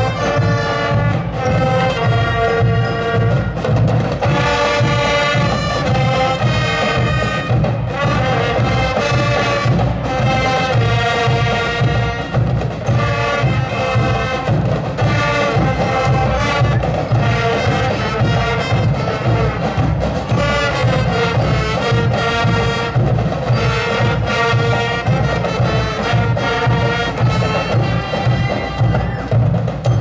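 School marching band playing a tune: brass carrying the melody over a steady beat of drums and percussion.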